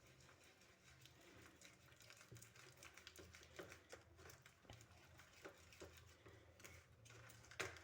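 Near silence: room tone with a low hum and a few faint scattered clicks.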